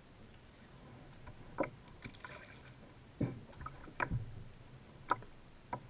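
A few scattered knocks and bumps in a kayak, four or so spread over several seconds, as the angler moves and leans over the side.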